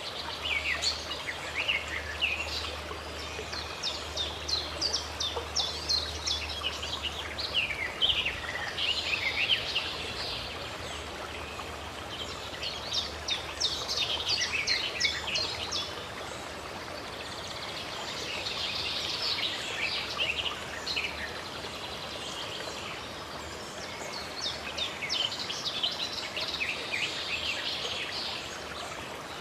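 Birds chirping and trilling in repeated bouts of quick, high notes over the steady rush of running water.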